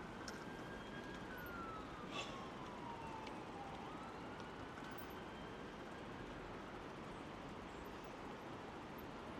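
A distant siren wailing, its pitch rising and falling slowly twice, over a steady rushing noise, with a single click about two seconds in.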